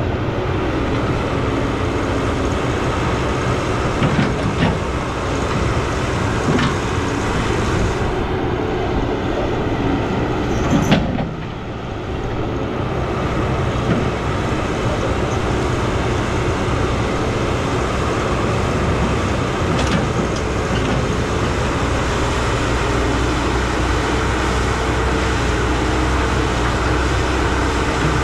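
Cat 312B tracked excavator running steadily, its diesel engine working with the clatter of the steel tracks as it moves. A few sharp metal knocks come through, the loudest about eleven seconds in.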